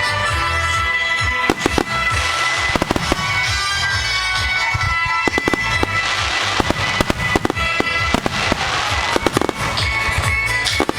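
Fireworks bursting in quick, irregular succession, sharp bangs with crackling between them, over music with sustained tones.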